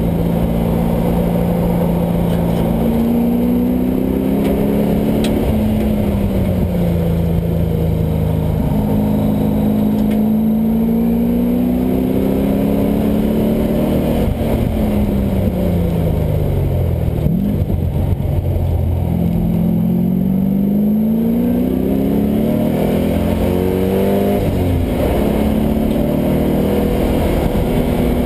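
LS1 5.7-litre V8 swapped into a Mazda Miata, revving hard on track. Its pitch climbs several times, breaking off with sudden drops at gear changes, and falls away in a long slide around the middle before climbing again.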